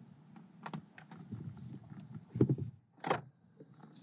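Scattered light clicks and knocks of handling in a fishing kayak while a landed bass is unhooked, with a heavier knock about two and a half seconds in and a sharper one just after three seconds.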